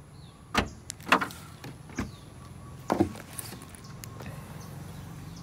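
Boot lid of a Nissan Teana being unlatched and lifted open: four sharp clicks and knocks, the loudest about a second in.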